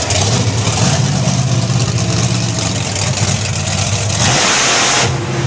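Bigfoot monster truck's engine running and revving as the truck drives across the lot toward the cars to be crushed. Near the end, a loud, even rush of noise lasting about a second takes over.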